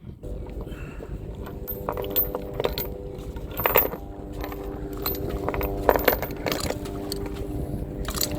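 Metal clinking of anchor chain and shackle being handled: a few sharp clinks over a low rumble, with a steady hum joining about two seconds in.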